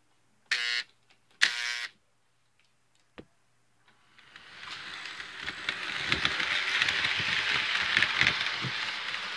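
Two short horn blasts from an HO-scale model locomotive, then the model train rolling up and passing right over, a rising rattle of wheels clicking on the track that grows loud and stays there.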